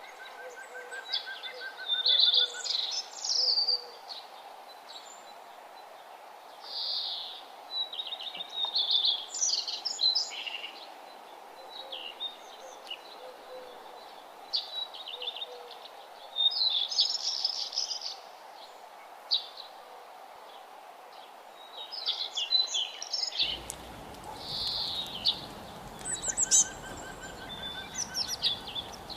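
Several birds chirping and trilling in bursts every second or two, with a lower call of short repeated notes near the start and again near the end, over a steady background hiss.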